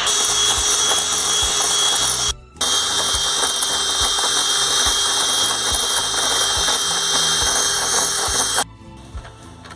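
Electric hand mixer running steadily with a motor whine, its beaters whipping eggs to a foam for chile batter. It cuts out for a moment about two and a half seconds in, starts again, and stops near the end.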